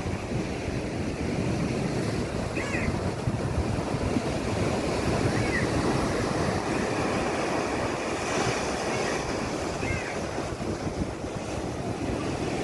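Steady rushing of surf washing in, with a few faint short high chirps over it.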